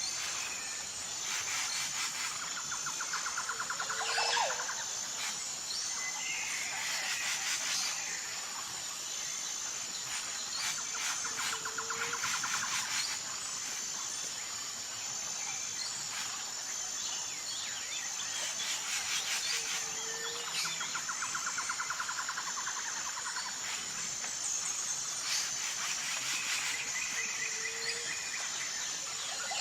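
Birds calling and trilling over a steady high-pitched insect drone. The same set of calls comes back about every eight seconds.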